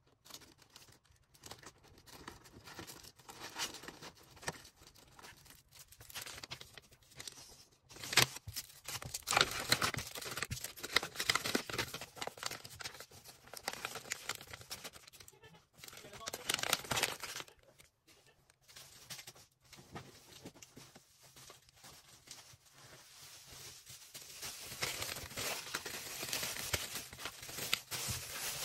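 Plastic packaging handled during order packing: irregular crinkling and tearing, louder in clusters about a third of the way in, again a little past halfway, and near the end.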